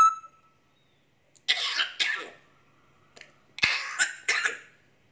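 African grey parrot making raspy cough-like, throat-clearing noises: two short coughs about one and a half seconds in, then a sharp click and two more about two seconds later. The tail of a high whistle ends right at the start.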